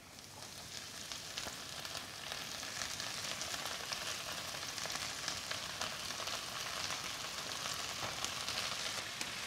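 Chopped sorrel leaves sizzling as they go into hot oil and frying onion in a stainless steel frying pan; the sizzle grows louder over the first few seconds, then holds steady.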